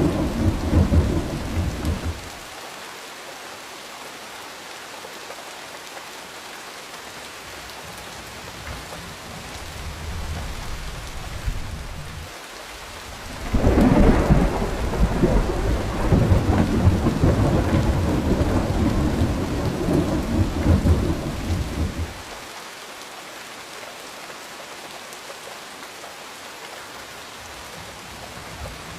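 Steady rain with thunder. A rumble dies away in the first two seconds, then there is only rain for about eleven seconds. About halfway through, a long, loud thunder roll lasts some eight seconds before the rain carries on alone.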